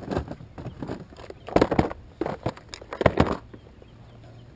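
Close handling clatter aboard a fishing boat: quick runs of knocks and clicks, loudest about a second and a half in and again around three seconds, then stopping. A faint low hum runs underneath.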